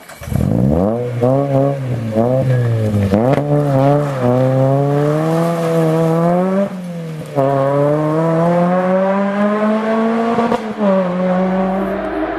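Peugeot 206 rally car's engine revving hard as it accelerates away, with the pitch climbing and falling through several quick shifts in the first three seconds. After that come longer climbs, each cut short by a gear change at about seven seconds and again near eleven seconds.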